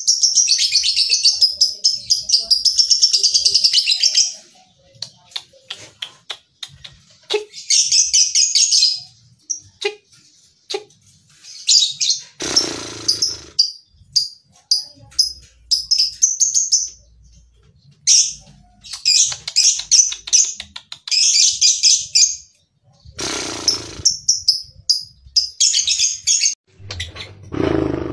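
Lovebird chattering in rapid, high-pitched chirps and trills, in bouts of a second or two with short pauses between. Two brief noisy bursts come about halfway through and near the end.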